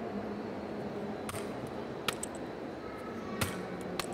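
Hammer tapping a steel hole punch through a stencil into birch bark on a wooden block: four sharp taps, irregularly spaced about a second apart.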